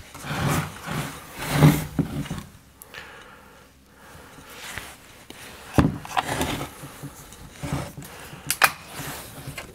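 A chainsaw being handled and turned over: rubbing and light knocks, with two sharper clicks about six and nine seconds in.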